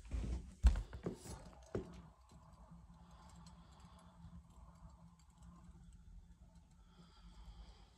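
A few sharp knocks and thumps in the first two seconds, then a faint steady hum.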